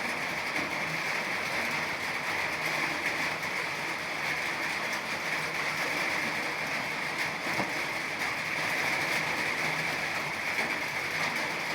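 Steady rain falling: an even, unbroken hiss with fine patter throughout.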